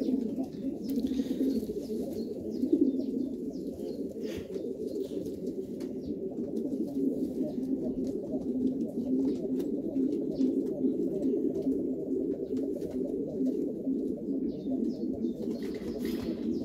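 Domestic pigeons cooing in a steady, low murmur that does not break.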